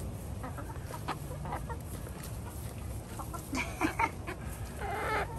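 Backyard hens clucking in short, scattered calls, busiest about three and a half seconds in and again near the end.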